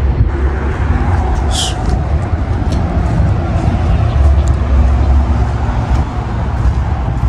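A steady low outdoor rumble, mostly wind buffeting the microphone, with faint voices and a brief high chirp about one and a half seconds in.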